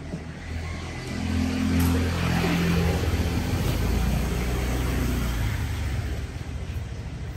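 A motor vehicle's engine passing by, swelling about a second in and fading away near the end.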